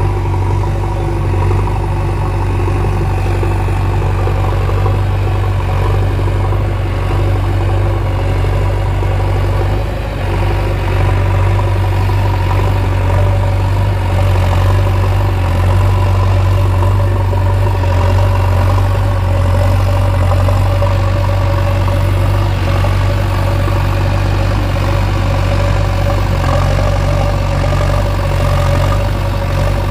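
JCB backhoe loader's diesel engine running steadily with a deep, even drone and a slight dip about ten seconds in.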